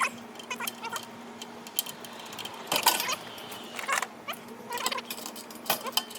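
Hand tools and bolts clinking and knocking irregularly against the metal brake assembly and transmission housing of a Speed Queen washer as the brake bolts are threaded in, with a few short squeaks.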